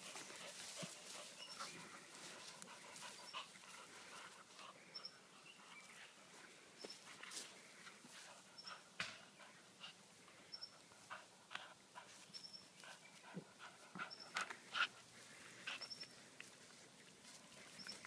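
Two Staffy dogs tugging at a rope toy: quiet panting with many short scuffling and rustling sounds. A faint high chirp repeats about every second and a half.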